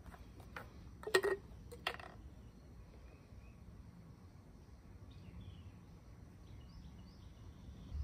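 Quiet outdoor ambience with a low rumble, a few short knocks in the first two seconds, and faint bird chirps.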